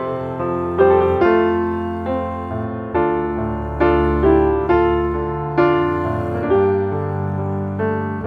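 Background piano music, a slow, gentle melody of single notes struck about once a second over held low chords.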